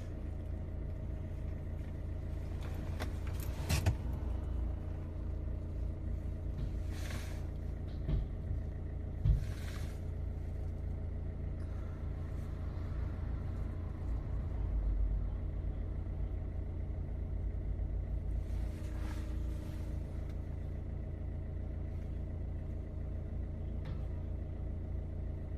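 A vehicle's engine running steadily with a constant low drone, with a few sharp knocks and several short bursts of hiss.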